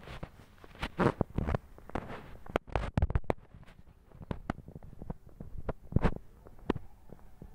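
Footsteps and scuffs on concrete paving stones, irregular knocks and rustles from a handheld phone mixed in.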